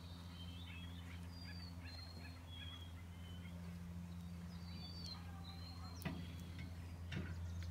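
Faint birds calling, with short high chirps scattered throughout, over a steady low hum. A sharp click comes about six seconds in.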